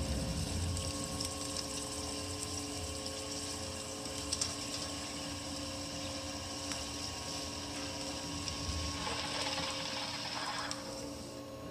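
A drill of about 0.6 inch cutting into 1018 cold-rolled steel on a CNC mill, its spindle turning at about 500 rpm and fed at about 7 thou per rev. A steady electrical whine from the spindle drive runs under a grinding cutting noise, and the cutting noise stops near the end.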